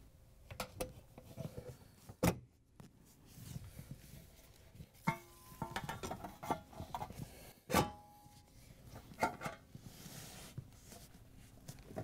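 Dishwasher's metal lower access panel being handled and fitted back under the door: scattered knocks and scrapes, with a few sharp clanks that ring briefly.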